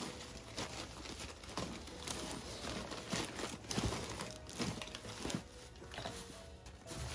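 Stack of old, dry paper envelopes and documents rustling and crinkling as gloved hands rummage through it, with irregular sharp crackles and light knocks as sheets are shifted.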